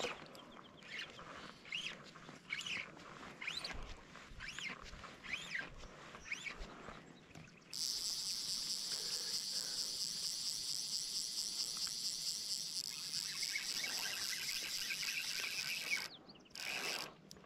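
Fly line being stripped in by hand while playing a hooked trout, a series of short swishes about one every second. About eight seconds in, the fly reel's click pawl takes over with a steady high buzz for about eight seconds, which stops suddenly.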